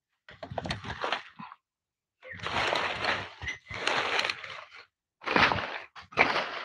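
Rustling and snapping of leafy plants being handled, in about five separate bursts.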